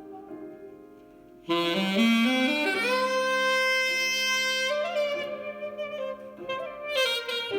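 Saxophone music played from a record through a Linn Majik-IP's phono input: a soft fading passage, then about one and a half seconds in a loud phrase of notes stepping upward into a long held note, followed by a few more notes.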